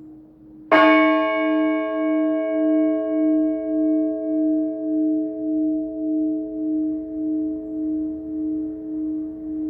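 Orthodox church bell struck once by its clapper just under a second in, then ringing on with a slow, even pulsing hum that fades gradually, its higher overtones dying away first.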